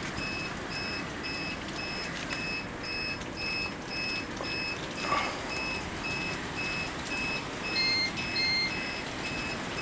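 An electronic alarm beeping steadily, short high beeps about two and a half times a second, over a steady hiss. About eight seconds in, a second device adds two short beeps at a different pitch.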